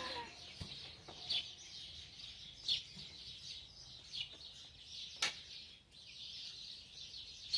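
Many small birds chirping in a steady chorus, with a few louder, sharper chirps standing out and a single sharp click about five seconds in.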